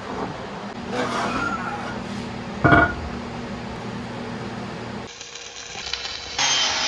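Workshop handling noises over a steady hum, with a short, loud clatter of a tool or part being knocked or set down near the middle. Near the end a power tool starts up and runs.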